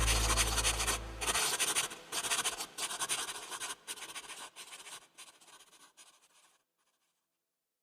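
Outro of a future-trap track. A long 808 bass note dies away and cuts off about a second and a half in, under a choppy, crackling noise texture. The texture fades out by about six seconds, leaving silence.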